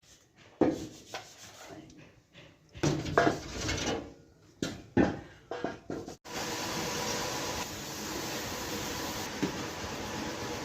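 Workshop work on metal parts: a few knocks and rubbing, scraping strokes, then suddenly a steady machine running with a faint whine.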